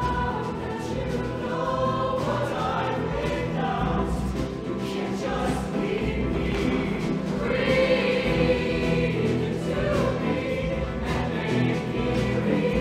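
Show choir singing in harmony with a live backing band, many voices over steady drum hits.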